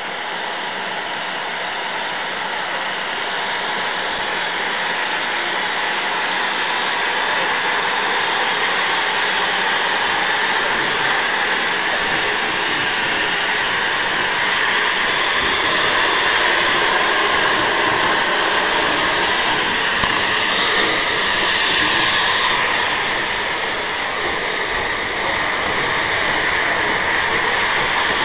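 Steady, loud hiss of steam escaping from a rebuilt Bulleid Battle of Britain class steam locomotive, slowly growing louder.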